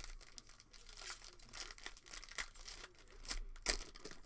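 Plastic foil wrapper of a trading-card pack being torn open and crinkled: a run of crackles and rips, loudest near the end.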